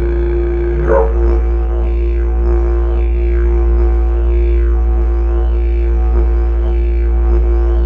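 Throat singing: a low, steady drone with overtones sweeping up and down about once a second.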